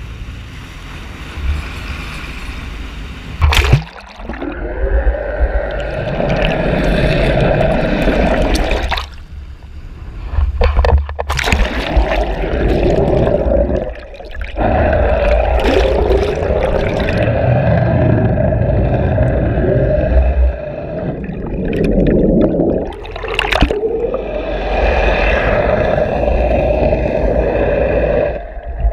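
Sea water rushing and gurgling around an action camera dragged underwater beside a moving fishing boat, with a steady drone underneath. A sharp splash comes about three and a half seconds in as it goes under, and the sound drops out briefly several times.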